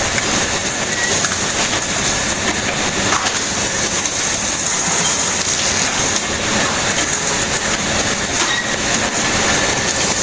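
Steady loud running noise of factory machinery, including a flatbed screen printing machine at work: a continuous hiss over a rumble, with a few faint clicks.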